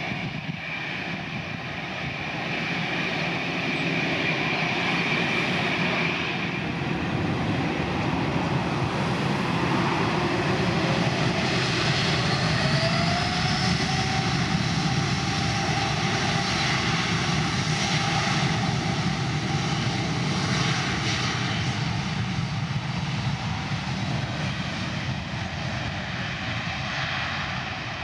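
Airplane passing close by, its engine noise swelling to a peak around the middle and then fading, with whining tones that slide in pitch as it goes past.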